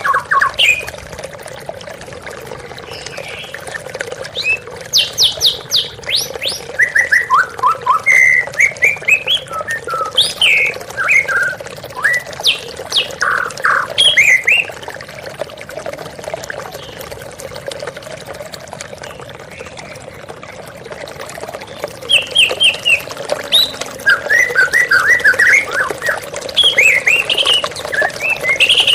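A murai songbird, the white-rumped shama, singing varied, rapid whistled phrases in bursts over the steady rush of a waterfall. The song pauses for several seconds past the middle and resumes near the end.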